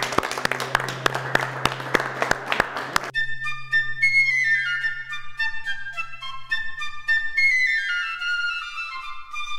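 Background music: a dense rhythmic passage with sharp beats for about three seconds, then an abrupt change to a light melody of quick, mostly descending runs of high notes.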